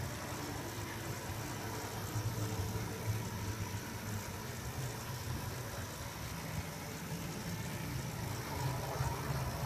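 Model Camel-class steam locomotive and tender running along the track: a steady low hum from the locomotive's motor with wheel noise on the rails.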